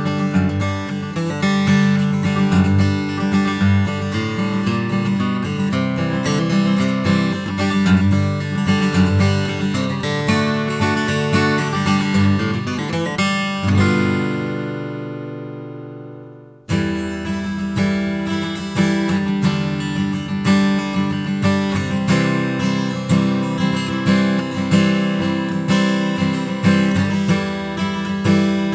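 Taylor 114 acoustic guitar, solid Sitka spruce top with laminate sapelli back and sides, being played in a demo. About fourteen seconds in a chord is left to ring and fade, then it cuts off suddenly and the playing starts again.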